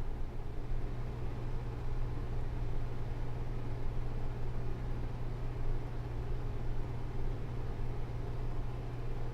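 Room tone of a room with an air conditioner running: a steady low hum with an even hiss over it, unchanging throughout.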